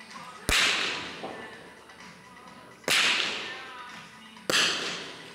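Three shots from .22 rimfire smallbore target rifles: sharp cracks about two and a half and then one and a half seconds apart. Each rings on in a long decaying echo off the shooting hall.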